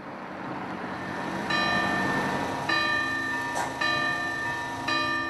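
A church bell tolling, struck about once a second from about one and a half seconds in, each stroke ringing on into the next. Before it, a passing vehicle rises in level.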